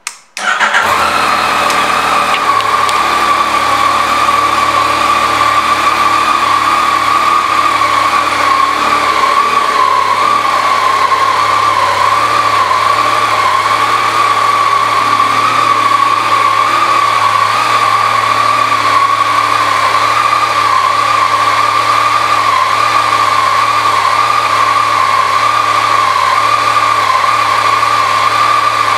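2019 Yamaha Niken's 847 cc three-cylinder engine starting up and settling straight into a steady idle.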